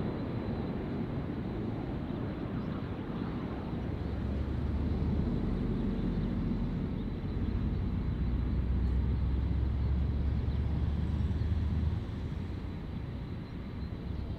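Jet airliner on its landing approach, a low engine rumble that grows louder from about four seconds in and drops away suddenly near the end.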